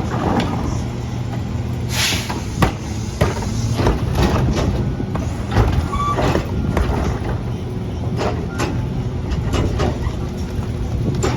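CNG Mack LR garbage truck with a McNeilus rear loader running with a steady low engine drone. Irregular knocks and clanks run throughout, with a short loud hiss of air about two seconds in.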